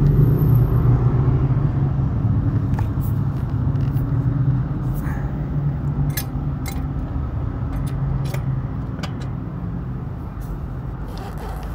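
A steady low engine drone, like a motor vehicle running close by, slowly growing fainter, with scattered short, sharp clicks over it.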